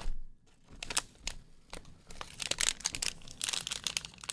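Plastic snack packet crinkling as it is handled, in short irregular rustles starting about a second in.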